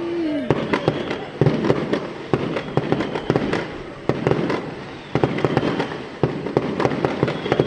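Fireworks going off: an irregular string of sharp pops and bangs, several a second, with a few louder bangs among them.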